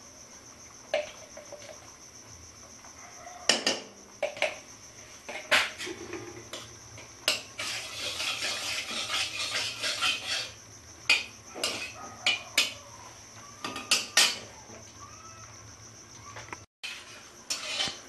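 A metal spoon clinking and scraping against a glass ghee jar and a kadai as ghee is spooned into a little hot mustard oil and stirred. About a dozen sharp clinks come scattered through, with a run of quick scraping strokes in the middle. A faint steady high whine sits underneath.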